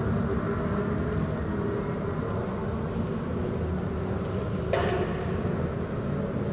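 Steady low rumble of indoor arena background noise, with a single sharp knock about five seconds in.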